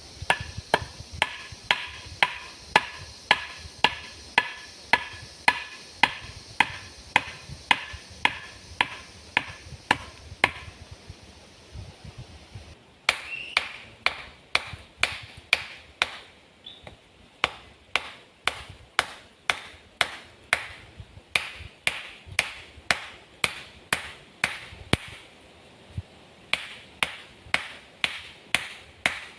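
Rapid, evenly spaced chopping blows, about two to three a second, in three runs broken by short pauses. The blows in the first run carry a ringing tone.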